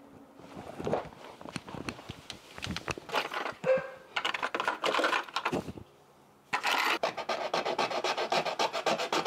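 Hand scraping or filing of a hard plastic part: irregular rubbing strokes at first, a brief pause, then quick back-and-forth strokes in a fast, steady rhythm from about six and a half seconds in.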